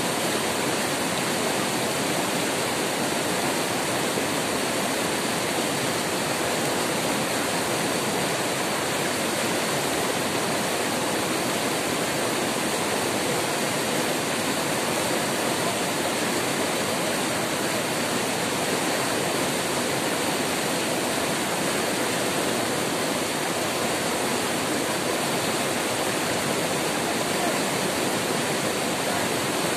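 White-water rapids rushing steadily over the rocks of a river, an even, unbroken noise of falling water.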